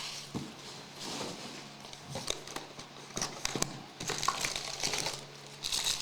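Plastic wrapping on a trading-card box or pack crinkling and tearing as it is opened by hand, an irregular rustle with scattered sharp crackles.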